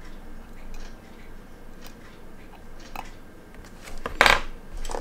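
Light metallic ticks and clicks of steel tweezers working a tiny screw into the plate of a quartz watch movement held in a metal movement holder, with one louder short clatter about four seconds in.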